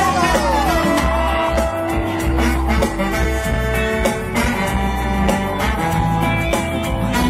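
Latin-style band music with bass, guitars and horns over a steady beat.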